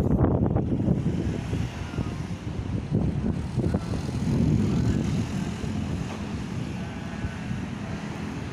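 Thunder rolling: a low rumble that breaks in suddenly, crackles through the first few seconds and fades slowly.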